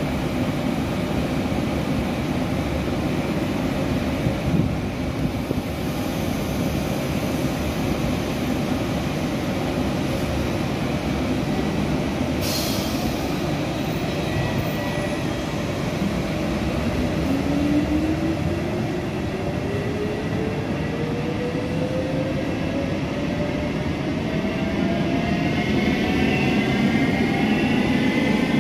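NSB Class 69 electric multiple unit pulling out: a steady rumble of wheels and running gear, with the traction motors' whine rising steadily in pitch from a little over halfway through as the train gathers speed. A short hiss about twelve seconds in.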